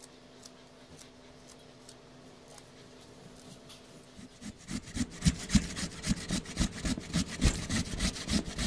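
A few faint knife clicks on coriander leaves. Then, about four and a half seconds in, a carrot is grated on a flat metal hand grater: loud, rhythmic rasping strokes at about three a second.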